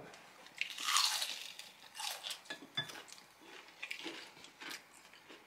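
Crunching bites into fried food and chewing, with the loudest crunch about a second in, then scattered sharp clicks of utensils against dishes.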